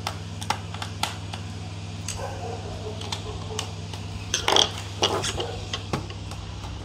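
Scattered light clicks and taps of a small screwdriver and the laptop's plastic case as its screws are driven back in to secure a replacement keyboard, with a louder cluster of clicks and rattles about four and a half seconds in, over a steady low hum.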